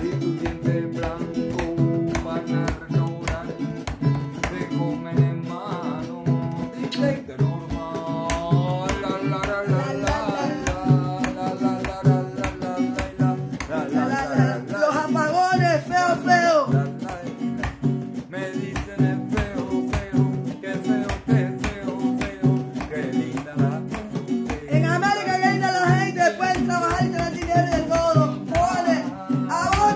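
Classical nylon-string guitar strummed in a quick, steady rhythm, chords ringing between the strokes.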